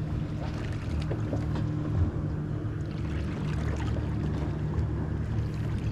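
Boat engine idling with a steady low hum.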